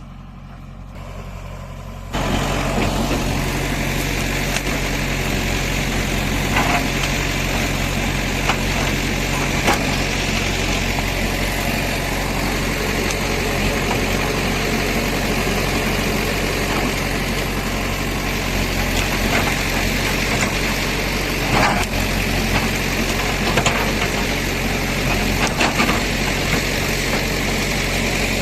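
Diesel engine of a JCB 3DX backhoe loader running steadily, starting abruptly about two seconds in, with a few short sharp knocks over it.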